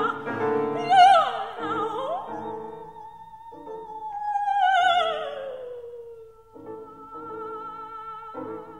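Soprano singing a German art song with piano accompaniment. After the opening phrases a long note slides downward through the middle of the passage, and near the end a held higher note sounds over spaced piano chords.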